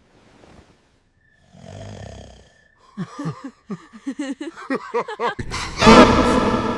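A cartoon snore run through heavy edit effects. First comes a soft breathy snore, then a quick run of falling, warped pitched sweeps, then a loud raspy blast near the end.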